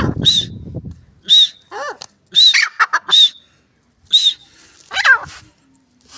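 Grey francolin calling: a run of short, high chirping notes, mixed with a few lower calls that rise and fall in pitch. A low rumbling noise fills the first second.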